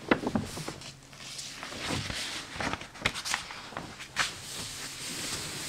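Paper pages of a 1940 Good Housekeeping magazine being turned, with several crisp crackles and rustles. Near the end a hand slides over the open page to smooth it flat, making a soft, steady hiss.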